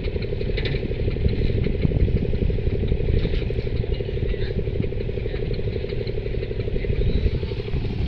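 An engine idling steadily, a low even running sound with a fast regular pulse, with faint light ticks over it.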